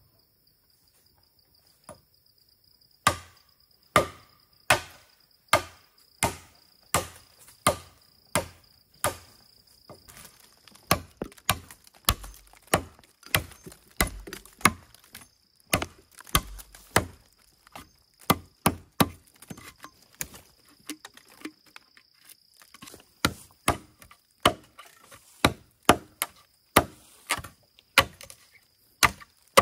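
Repeated chopping strikes of a blade into bamboo: about one blow a second at first, then quicker, uneven strokes from about a third of the way in. A steady high insect drone runs under the blows.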